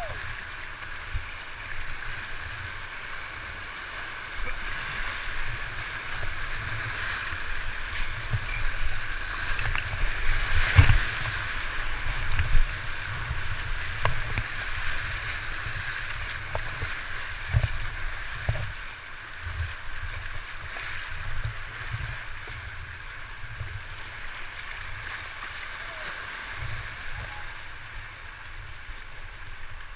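Whitewater rapids rushing around a kayak, with paddle splashes and irregular low thumps on the microphone. The loudest splash comes about eleven seconds in.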